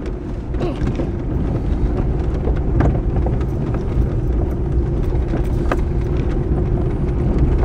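Inside a Ford Explorer driving slowly over a rough, rutted dirt track: a steady low rumble of engine and tyres with the body jolting, and a couple of sharp knocks from the bumps.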